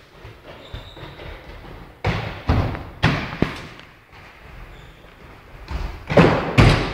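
Thuds of feet jumping and landing on the gym floor and mats, echoing in a large hall: four between about two and three and a half seconds in, then two louder ones near the end.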